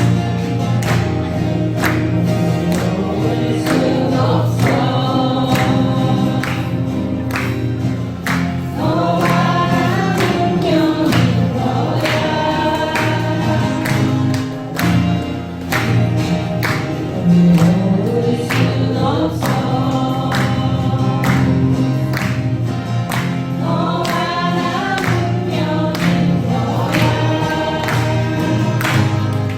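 Acoustic guitars strumming a steady rhythm while several voices sing a song together.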